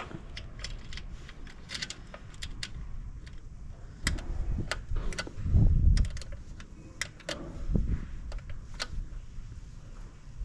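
Small, irregular metallic clicks and rattles of a steel throttle cable and its end fitting being worked into the throttle linkage by hand, with a few low rumbles.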